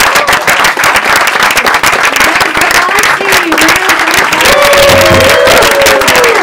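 Loud audience applause, dense clapping with voices cheering and whooping over it.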